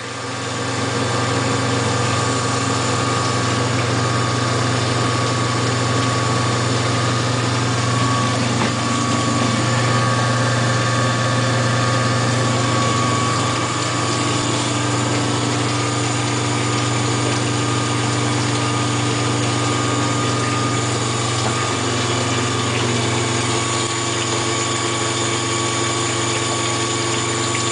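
A one-horsepower electric motor belt-driving a General Motors power steering pump, running steadily with a constant hum. It is pumping oil under pressure up to the centrifuge of a home-built biodiesel processor.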